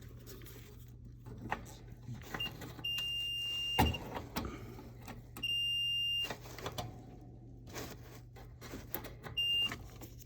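Multimeter continuity beeper sounding in four high, single-tone beeps of different lengths as the probes touch the electric strip heater terminals: continuity through the heater elements. A sharp knock about 4 s in, small probe clicks, and a steady low hum run underneath.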